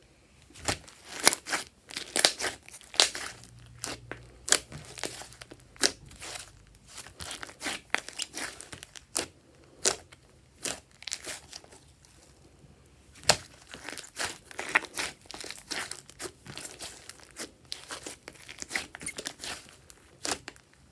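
Glossy slime being kneaded and pressed by hand, making a run of irregular sharp clicks and sticky pops, with a sparser stretch about halfway through.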